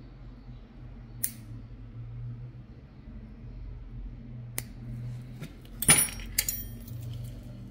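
Small metal instruments clinking, with single clicks early on and a quick cluster of ringing metallic clinks about six seconds in, over a steady low hum.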